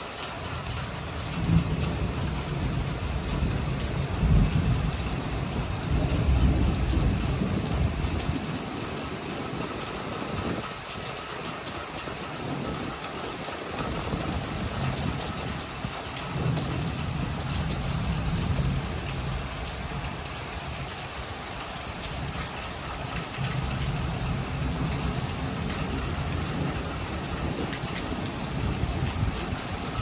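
Rain falling steadily in a thunderstorm, with long low rolls of thunder rumbling in and out: a first long roll in the first ten seconds, more from about halfway through to the end.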